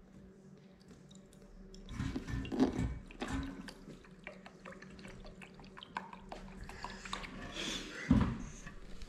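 Hydrogen peroxide poured from a plastic bottle into a small stainless steel measuring cup: a faint trickle with small drips and clinks. There is a short knock near the end.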